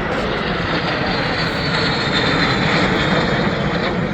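Engine noise of a fixed-wing aircraft flying by, a steady rushing sound with a faint high whine that slowly drops in pitch.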